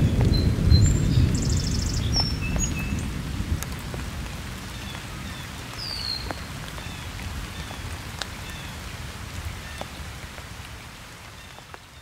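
Steady rain falling on a slow stream and its reeds, with single drops splashing; the low rumble of thunder dies away over the first few seconds.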